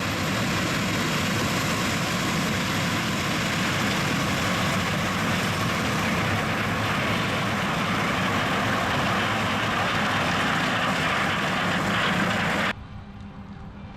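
John Deere S780 combine harvesting corn, its 13.5-litre six-cylinder diesel and threshing gear running with a steady, dense machine noise that drops off abruptly near the end to a much quieter background.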